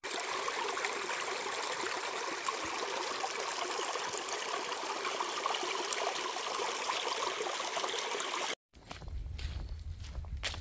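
Small mountain stream running steadily over rocks, cutting off suddenly about nine seconds in; footsteps on the trail follow near the end.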